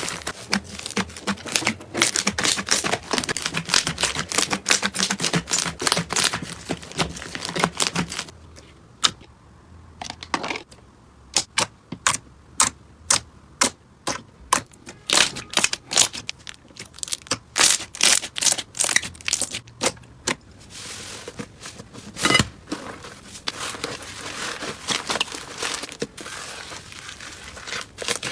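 Slime being handled and squeezed, giving dense crackling, then a long run of sharp separate clicks and pops at about two a second, then crackling again near the end.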